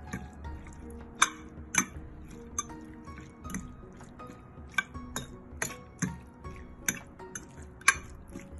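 Metal fork clinking and scraping against a glass baking dish while stirring diced raw chicken in its marinade: irregular sharp clinks, about one or two a second.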